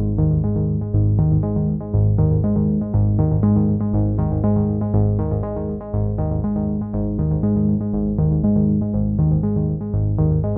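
Background music: synthesizer and keyboard with a steady, repeating pulse of notes, about two a second.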